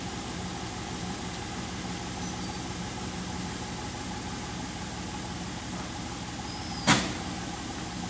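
An engine idling steadily, with a single sharp knock about seven seconds in.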